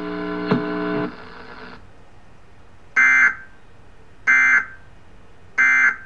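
A steady buzzing hum stops about a second in. Then come three short, identical bursts of warbling data tones, evenly spaced about a second and a half apart: the Emergency Alert System end-of-message code that closes the test, played through a television speaker.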